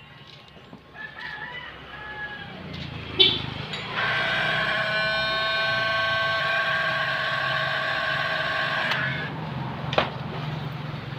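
A click, then an electric heat gun running with a steady whine for about five seconds, shrinking heat-shrink tubing over the soldered wires, and another click near the end.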